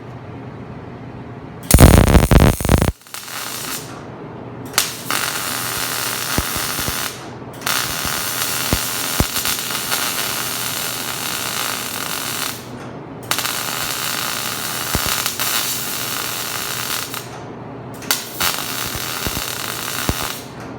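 MIG welder laying weld beads on a steel mower frame, the arc crackling and hissing in four or five separate runs of a few seconds each with short pauses between; the first, about two seconds in, is short and loudest.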